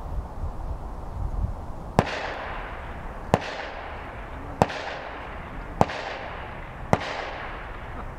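Shotgun shots: five sharp reports about a second apart, each trailing off in an echo.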